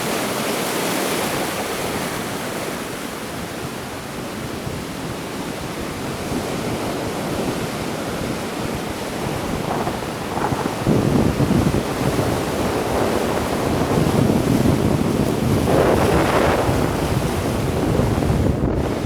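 Sea waves breaking and washing onto the shore, with wind buffeting the microphone. The wash gets louder and heavier from about halfway through, with a bigger surge near the end.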